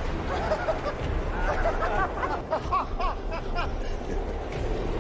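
People's voices and snickering laughter over a steady low rumble of street noise.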